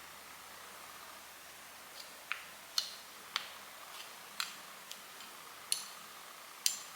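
Light, sharp clicks and taps, about nine of them at irregular intervals starting about two seconds in, from small plastic travel containers and a knife being handled while shea butter is portioned into them.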